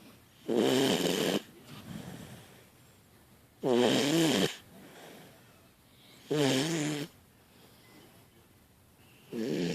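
Puppy snoring in its sleep: four loud snores with a wavering pitch, about one every three seconds, with faint breathing between them.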